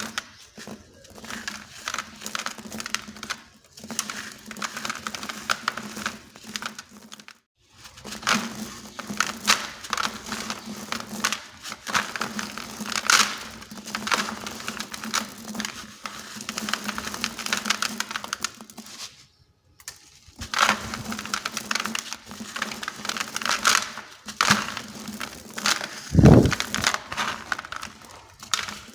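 Dry, dusty sand-cement blocks being crushed and crumbled, a dense gritty crunching and crackling that comes in bursts, with two brief pauses. A dull thump stands out near the end.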